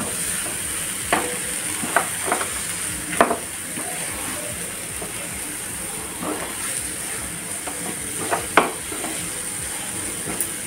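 Spatula scraping and pressing a sticky date, nut, sesame and oat ladoo mixture around a nonstick frying pan, with a steady sizzle underneath. The scrapes come at irregular moments, several close together in the first few seconds and a pair near the end.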